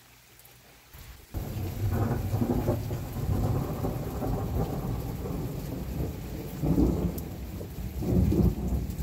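Thunder rolling in heavy rain: after a brief quiet, a long low rumble starts about a second in and swells twice more near the end, over a steady hiss of rain.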